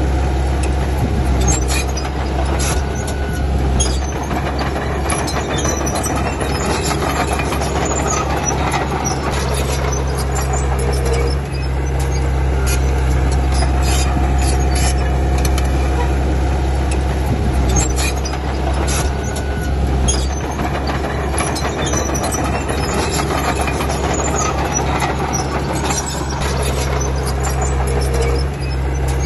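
Crawler bulldozer working: its diesel engine runs steadily under load while the tracks clank and give short metallic squeals every few seconds.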